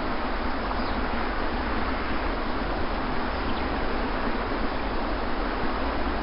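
Sea surf on a beach: a steady, unbroken wash of waves.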